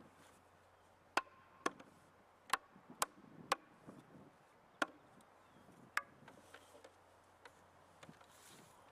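Rubber mallet tapping a cedar log leg-and-arm assembly onto the chair seat's tenons to seat it: about seven sharp knocks at irregular spacing, the last about six seconds in.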